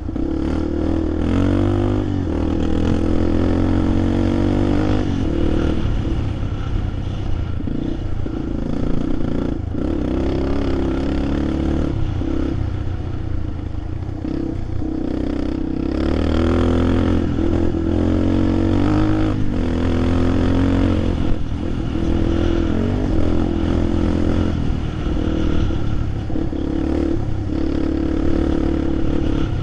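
Vehicle engine running and revving up and down as it climbs a rough dirt trail, with clattering and rattling over the bumps.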